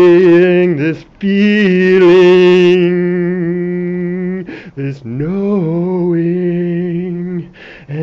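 A single voice chanting long, drawn-out wordless tones in three held phrases, each broken off by a short pause for breath.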